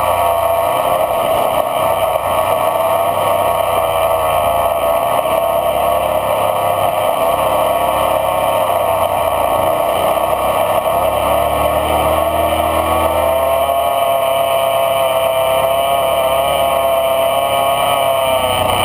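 Off-road vehicle engine running as it drives over a sandy dirt trail. The engine note wavers up and down with the throttle and climbs about two-thirds of the way through.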